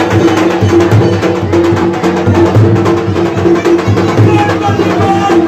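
Large barrel drum beaten in a rapid, steady rhythm, with sharp strokes over a deep pulsing boom.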